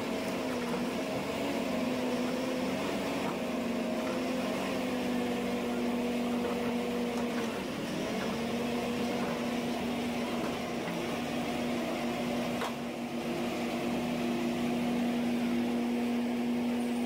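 Forestry harvester's diesel engine running with a steady hum, its pitch sagging briefly and recovering about seven to eight seconds in.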